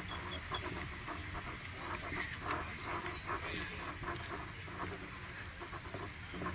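Outdoor car-show background: a low, steady engine hum with scattered faint voices and clicks.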